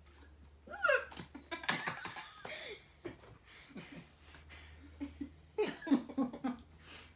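Human laughter in bursts, loudest about a second in and again around six seconds in.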